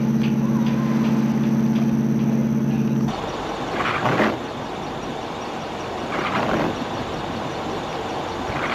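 Steady drone of a boat's engine, a low hum with several pitched tones, cut off abruptly about three seconds in. Then outdoor traffic noise with three brief hissing swells of passing vehicles.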